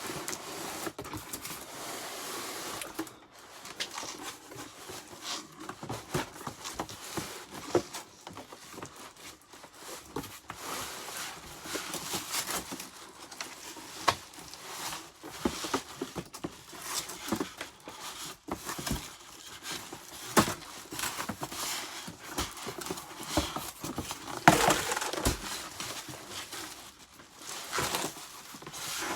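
Unpacking a vacuum cleaner: plastic and cardboard packaging rustling and crinkling in irregular bursts, with scattered knocks and clicks as parts are handled, and a louder burst of rustling near the end.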